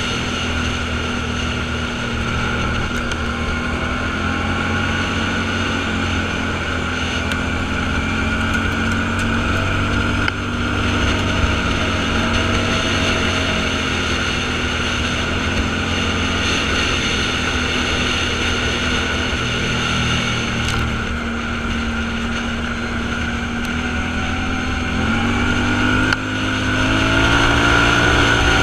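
Off-road vehicle engine running steadily, its pitch wavering and then rising, and getting louder, about 26 seconds in. Wind noise runs underneath.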